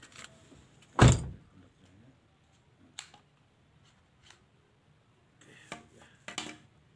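A car door shut from inside the cabin: one heavy thump about a second in. A couple of light clicks follow, then a short spell of clicking and rustling near the end.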